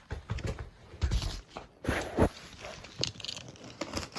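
A cardboard shipping package being handled and worked open by hand: irregular knocks, scrapes and rustles of cardboard and packing.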